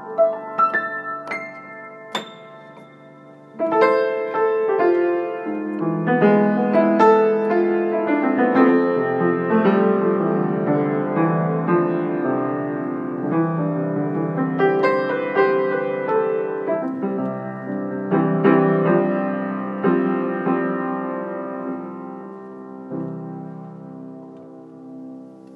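An 1890s Chickering & Sons parlor grand piano being played: a few scattered notes, a brief lull, then a full passage of chords and melody from about three and a half seconds in that gradually softens and dies away near the end.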